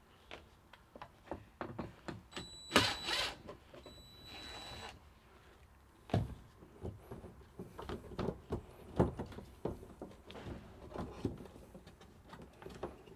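Cordless drill-driver run in two short bursts to back out screws, a steady motor whine each time. Then clicking, knocking and rustling as wires and plastic connectors are handled and pulled out of a wall opening.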